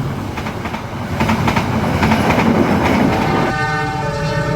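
A train running past, its wheels clattering over the rail joints. About three and a half seconds in, a train horn starts sounding a steady chord of several tones.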